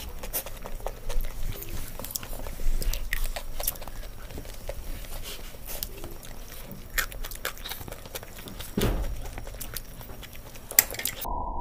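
Two people chewing and biting into mouthfuls of spicy instant noodles, with many small mouth clicks and smacks. A louder thump comes about nine seconds in.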